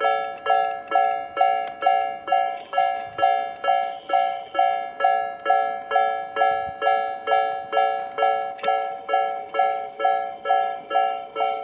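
Japanese railway level-crossing warning bell ringing at about two strokes a second, each stroke a clanging chord of several tones. The bell has an unusual, off-sounding tone.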